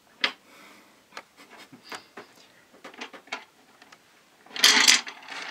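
Small lotto barrels slowly poured from a plastic bowl into a stainless steel pot: scattered light clicks and rattles as single pieces slip and drop, then a louder clattering rush about four and a half seconds in as a batch slides out together.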